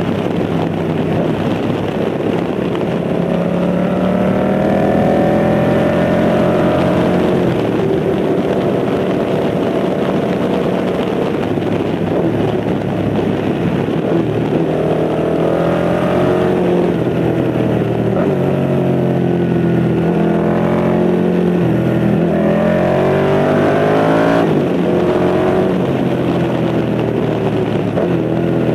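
Yamaha MT-07's 689 cc parallel-twin engine with a tuned aftermarket exhaust, heard from on board while riding: the revs climb and fall repeatedly as the rider works the throttle and gears, with one sharp drop in pitch about three-quarters of the way through.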